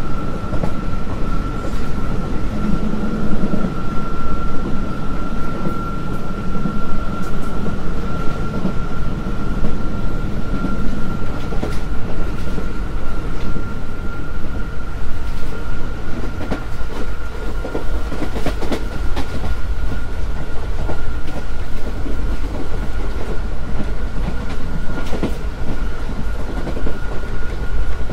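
WCAM-1 electric locomotive's traction motors running at speed with a steady high whine, over a low rumble and the irregular clicks and clatter of wheels on rail joints.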